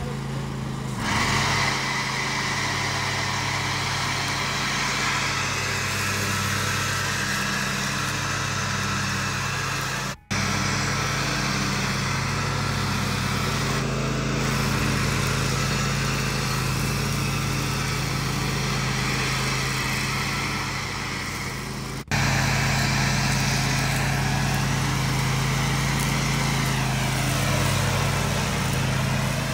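Toro zero-turn riding mower's engine running steadily while mowing grass. The sound drops out for an instant twice, about ten and twenty-two seconds in.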